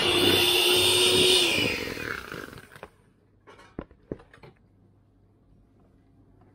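Electric hand mixer running with its beaters whisking sponge-cake batter in a plastic bowl, then switched off and winding down about two seconds in. A few light knocks follow as the beaters are lifted out.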